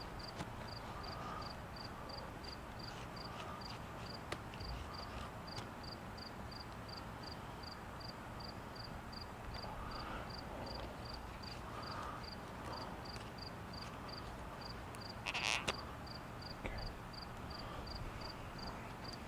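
Steady high-pitched chirping from a small animal, very even at about three chirps a second. A few faint clicks are scattered through it, and a louder short scraping noise comes about fifteen seconds in.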